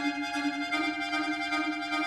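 Chromatic button accordion playing sustained chords over a held note, moving to a new chord about a third of the way in.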